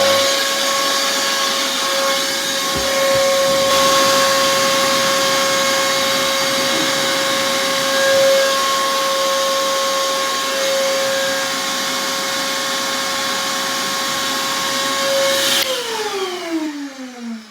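Shop vac running in blower mode with a heat gun blowing hot air into its intake, a steady high motor whine. Near the end it is switched off and the whine slides down in pitch as the motor winds down.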